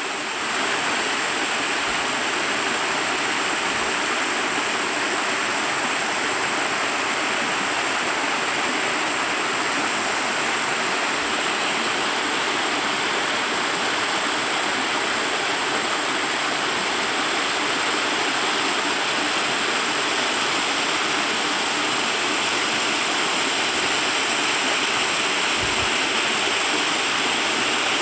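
Mountain waterfall: a steady, dense rush of falling water.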